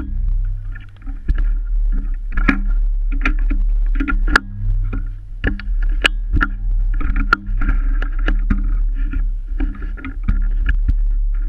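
Yamaha PW50 mini motorbike's small two-stroke engine idling steadily, with irregular clicks and rattles over its low hum.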